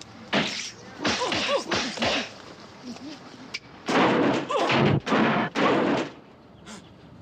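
Staged fight sound effects: a run of punch hits with a man's pained grunts and groans as he beats himself up. The loudest, longest burst comes about four to six seconds in.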